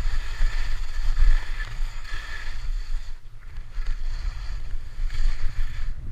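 Skis scraping across snow through linked turns: a hiss that swells with each turn and drops out briefly about three seconds in and again near the end. Under it runs a steady low rumble of wind on the microphone.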